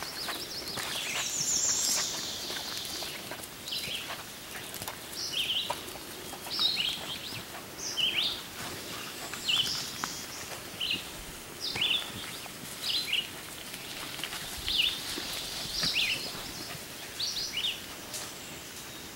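Songbird singing in woodland: a brief high trill near the start, then short high chirps, many dropping in pitch, repeated every second or so.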